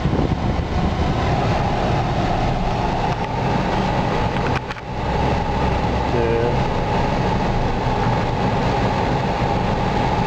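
Steady engine and road rumble heard from inside a car's cabin in slow city traffic, with a steady hum. The sound briefly drops about halfway through, then returns.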